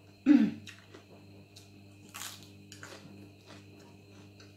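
Close-miked eating sounds of a meal of rice and fresh raw greens eaten by hand: chewing with many small faint clicks. There is a short loud sound with a falling pitch just after the start and a hissy crunch about two seconds in, over a steady low hum.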